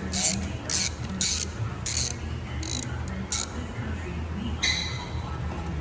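Ratchet wrench being worked in short back-and-forth strokes, a brief rasp of clicks about every half second, as a bolt is tightened. The strokes stop after about three and a half seconds, and a single louder rasp follows near the end.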